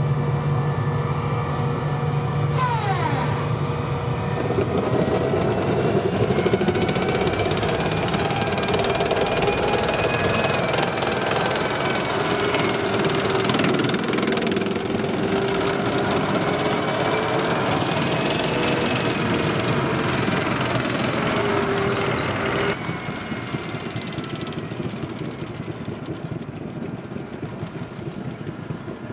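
M1A1 Abrams tank on the move: the whine of its AGT1500 gas turbine, rising and falling in pitch, over the dense clatter of its tracks on gravel. Near the end the sound drops suddenly to a quieter, more distant level.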